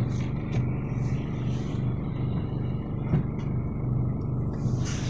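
Car engine running, a steady low hum.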